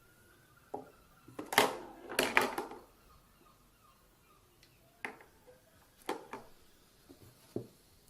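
A string of sharp knocks and clattering bumps, with a loud burst of clatter about one and a half to three seconds in and single knocks later on.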